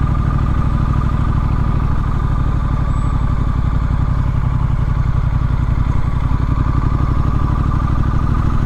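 Triumph Street Scrambler's 900 cc parallel-twin engine running at a steady speed while the bike is ridden, heard from the rider's position, with a low, even engine note.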